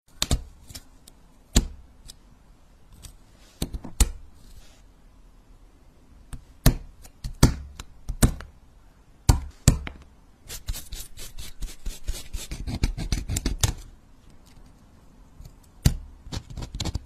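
Close-miked metal tweezers and a needle tool tapping, scraping and picking at a brittle pink craft sheet, with sharp isolated clicks as pieces snap off. In the middle comes a dense run of fast crackling clicks lasting about three seconds.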